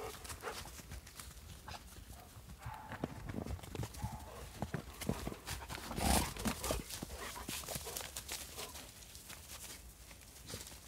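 Irregular crunching footsteps and rustling in fresh snow, with one louder crunch about halfway through.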